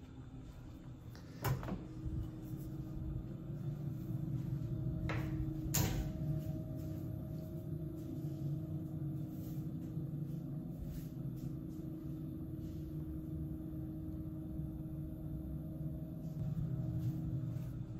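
A click about a second and a half in, then a hotel bathroom's exhaust fan humming steadily, with another sharp knock about six seconds in; the hum drops away near the end.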